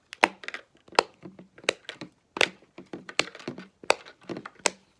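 Sharp clicks of a simple dimple fidget's silicone buttons being pushed in one after another, about one click every 0.7 seconds.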